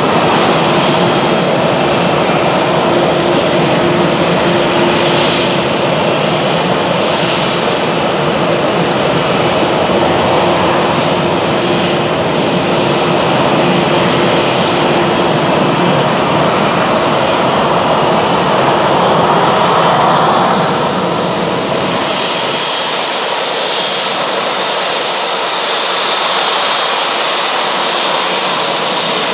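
Jet engines of an Airbus A320-family airliner running at taxi power: a loud, steady rush with a low hum. About three-quarters of the way through the deep part of the sound falls away, leaving a thinner rush with a high whine.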